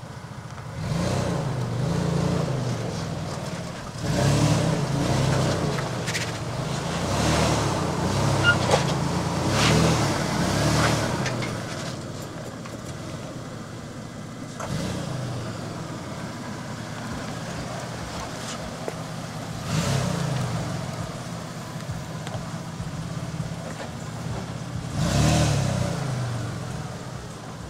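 Toyota Tacoma pickup's engine revving up and falling back in repeated surges as the truck crawls over rock ledges, with the loudest pushes about four, nine and twenty-five seconds in.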